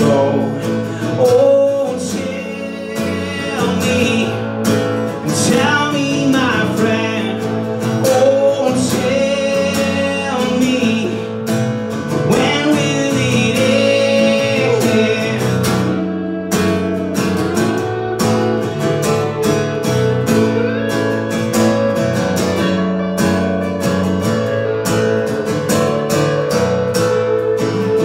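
Instrumental break of a live folk-country song: an acoustic guitar strumming steadily under an electric guitar playing a bending lead melody.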